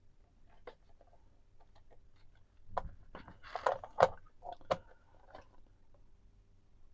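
Cloth rubbing over the plastic case of a cassette Walkman, with a few light clicks and knocks as the player is handled and turned over. The sharpest knock comes about four seconds in.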